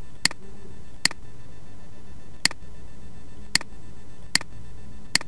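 Computer mouse clicking six times at uneven intervals while paging through slides, over a steady low hum.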